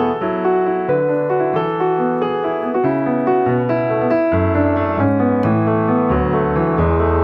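Background piano music: a melody of steady notes over lower chords.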